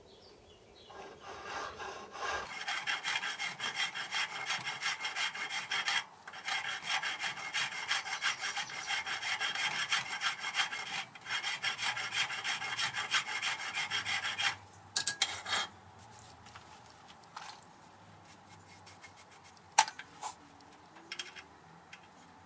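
Hand file rasping in quick back-and-forth strokes in a slot in a steel fly cutter body held in a vise, deepening the slot. The filing breaks off briefly twice and stops about 14 seconds in, followed by a few light clicks.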